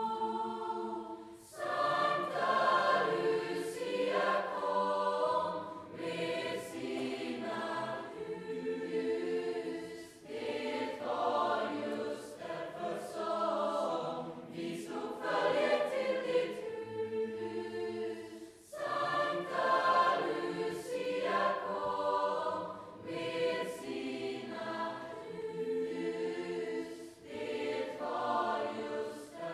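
Large choir singing in long phrases, with a short break between phrases about every eight seconds.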